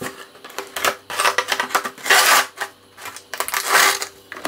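Cardboard and clear plastic toy packaging being handled: a few separate scrapes and crackles as a cardboard sheet is slid and lifted off a plastic tray.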